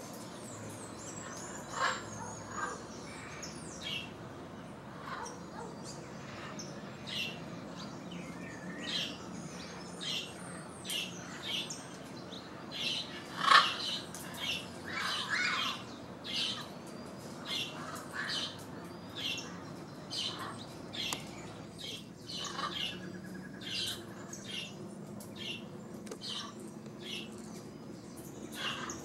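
Parrots squawking: a string of short calls, one or two a second, with the loudest about 13 seconds in. The birds are a mixed group of blue-and-yellow macaws and yellow-crowned amazons.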